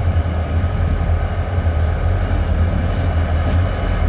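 EMD SD40T-2 diesel locomotive and its trailing EMD units running: a steady, loud low engine drone with a faint steady whine above it.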